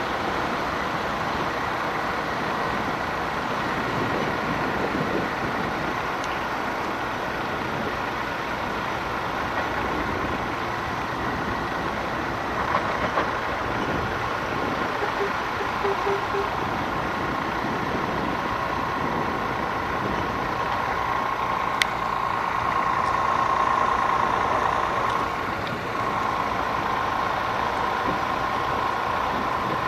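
A heavy vehicle's engine running steadily, with a steady whine that comes in about halfway and a sharp click near the end.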